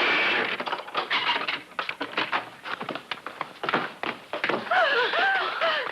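A quick, irregular run of knocks and thumps. About three quarters of the way through, a person starts moaning and gasping, the voice wavering up and down.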